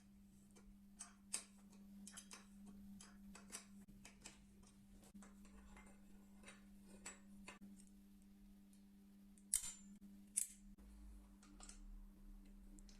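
Faint, irregular light clicks and taps, with two sharper clicks about three-quarters of the way through, over a low steady hum.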